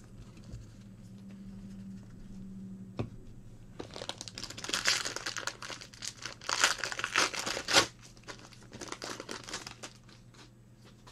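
Foil wrapper of a trading card pack crinkling and tearing as gloved hands rip it open, from about four seconds in until nearly eight seconds in, after a couple of light taps.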